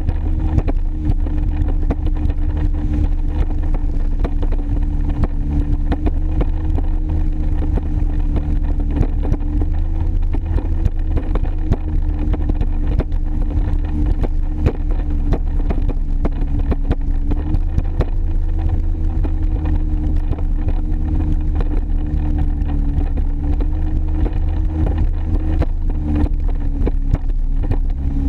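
2001 Sea-Doo XP jet ski's two-stroke engine running steadily at speed, its pitch wavering slightly with the throttle, with water and wind noise over it.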